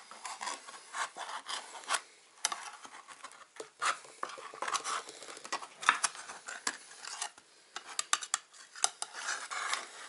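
Kitchen knife blade cutting and prying around the rim of a tin of sprats whose ring-pull has torn off: metal scraping and grating on metal in irregular strokes, with sharp clicks.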